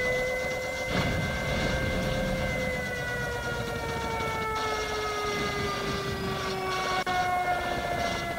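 A sustained droning tone, rich in overtones, from the film's soundtrack. It slowly sinks in pitch, and a second, higher tone comes in near the end, over a low rumbling noise.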